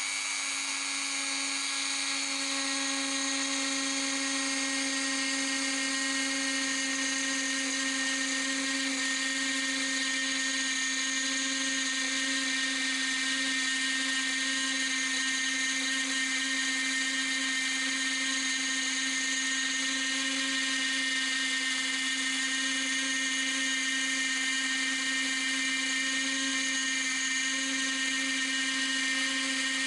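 Dremel 4250 rotary tool running at about 15,000 RPM with a 60° V-bit, milling a thread into aluminium: a steady high-pitched whine that holds unchanged throughout.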